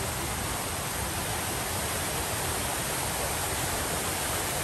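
A steady, unbroken rushing noise that stays even in level and shows no distinct events.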